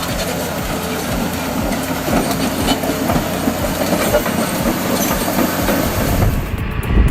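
Heavy tracked machinery running, a steady mechanical din with a repeating clatter. About six seconds in the sound changes and a louder low rumble takes over.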